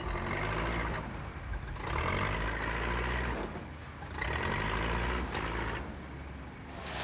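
Heavy diesel engine of earth-moving machinery revving up and easing off in three surges, about every two seconds.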